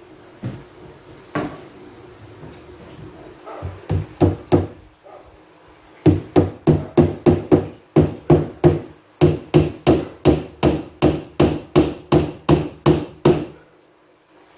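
A claw hammer drives nails into a particleboard cabinet panel. After a couple of single knocks come four quick blows, a short pause, then an even run of about two dozen blows, roughly three a second.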